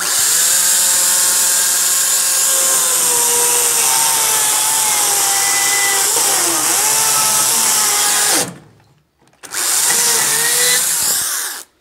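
Makita DUC353 36V cordless chainsaw's electric motor running with a steady whine, its pitch sinking slowly and dipping briefly about six and a half seconds in. It cuts off suddenly after about eight and a half seconds, then runs again for about two seconds and stops.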